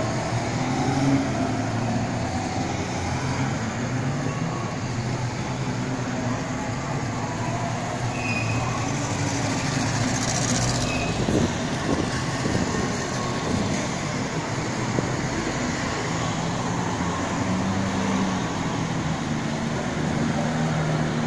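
Old Soviet-era Moskvich cars driving past one after another at low speed, their engines making a steady hum, mixed with other passing traffic. One car passes close with a louder swish of tyres near the middle.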